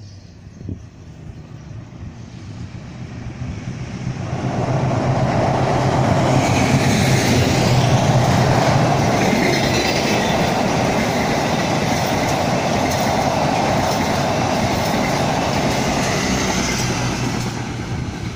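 Passenger train crossing a girder bridge: its rumble builds over the first few seconds, holds loud and steady with wheel clatter, and eases off near the end.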